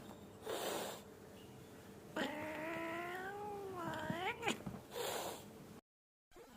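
Bengal cat giving one long, drawn-out yowling meow lasting about two seconds, its pitch rising sharply at the end, with a short breathy sound before and after it.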